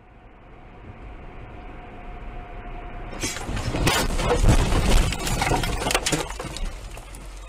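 Inside a car: steady road and engine noise, then about three seconds in a sudden crash as the car leaves the road, with a dense run of bangs, thumps and rattles as it bounces over rough ground, loudest a second or two later.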